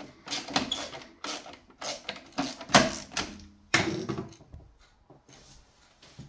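Sharp clicks and knocks of hard parts being handled during work on a boiler, about two or three a second, thinning out and fading after about four seconds.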